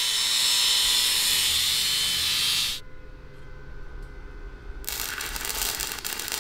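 Power tool grinding through welded steel to cut out old axle hangers: a loud, steady high hiss that stops about three seconds in. A rougher, chattering cut starts again about two seconds later.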